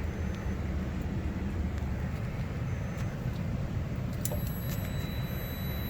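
Steady low background rumble with no alarm tone sounding. A sharp click comes a little past four seconds in, followed by a faint, steady high-pitched whine.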